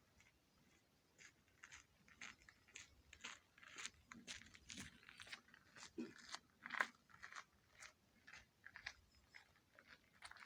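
Faint footsteps of a person walking on a forest path, about two steps a second.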